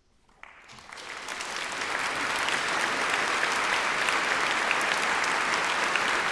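A concert audience bursting into applause after a hush: clapping breaks out about half a second in, swells within a couple of seconds, then goes on as steady, full applause.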